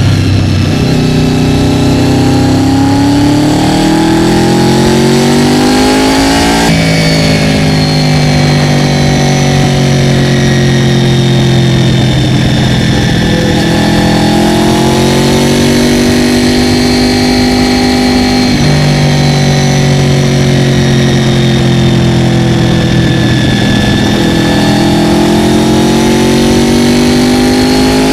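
Honda VFR800FI V4 motorcycle engine with a modified exhaust, under way. The revs climb and ease off, with sudden steps in pitch at gear changes about a quarter and about two-thirds of the way in.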